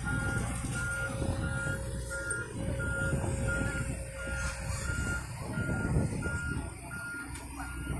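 Tracked excavator's travel alarm beeping evenly, about three beeps every two seconds, over the steady low running of its diesel engine as the machine moves with its digging arm raised.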